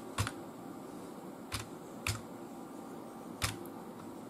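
Computer keyboard keys pressed one at a time as a password is entered: about four or five separate clicks, spaced a second or more apart.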